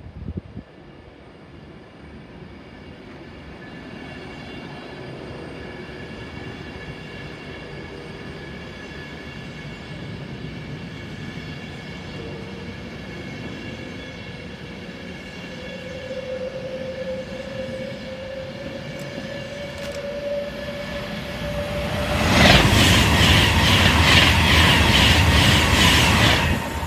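Class 390 Pendolino electric train accelerating away, its whine slowly rising in pitch as it draws nearer. It then passes close by at speed for about four seconds with a quick, regular wheel clatter, which cuts off as it goes.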